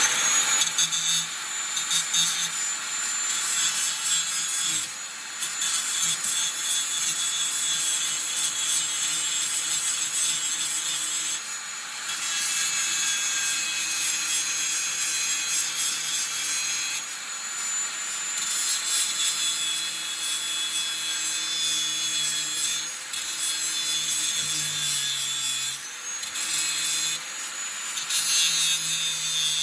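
A 4.5-inch angle grinder with a cut-off wheel grinding the heads off the rivets that hold sickle sections on a McCormick 27V mower's sickle bar. It is a continuous, harsh metal-grinding noise over the motor's steady whine, easing off briefly every few seconds as the wheel is lifted or moved to the next rivet.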